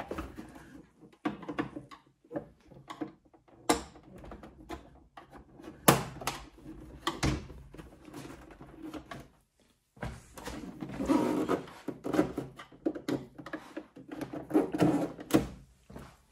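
Plastic side panel of a Melitta CI Touch coffee machine being pried at with a flat-blade screwdriver: scattered sharp clicks and knocks as its clips are worked, with a stretch of scraping and rubbing about two-thirds of the way through.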